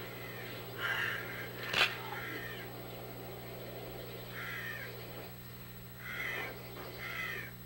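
Steady low electrical hum, with several short, harsh caw-like calls spread through and a single sharp click a little under two seconds in.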